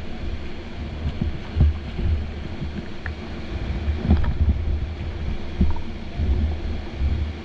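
Rushing whitewater of a river rapid heard from an inflatable kayak, with wind buffeting the microphone as a steady low rumble. A few short thumps from paddle strokes and the boat in the waves.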